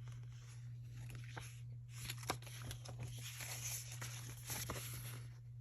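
Rustling and crinkling of paper and plastic packaging as sticker sheets are handled, with scattered light clicks, over a steady low hum.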